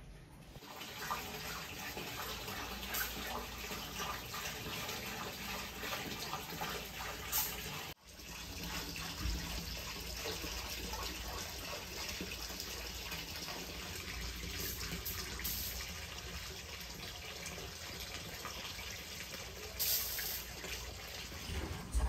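Hot spring water pouring steadily from spouts into an open-air bath, a constant running and splashing, with a brief drop near the middle.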